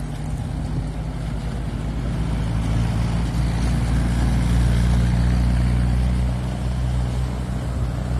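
The four-cylinder engine of a WWII Willys jeep running at a steady pitch as the jeep drives by. It grows louder to a peak in the middle as the jeep passes, then fades as it pulls away.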